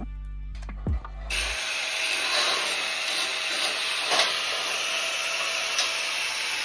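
Metalwork on a steel pipe gate with a stick welder and an angle grinder: a low, steady mains hum, then from about a second in a steady hissing crackle of arc and abrasive work on the steel.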